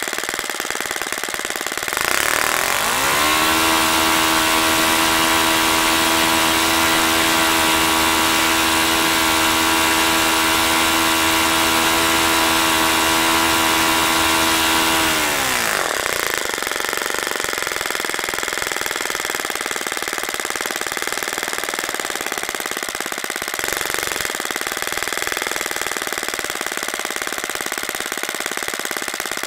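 OS FS-30 Surpass single-cylinder four-stroke glow engine spinning a propeller, running on the newly replaced valve springs. It idles, is throttled up about two seconds in to a steady, louder high-rpm run, then is throttled back about halfway through and settles at a steady low idle.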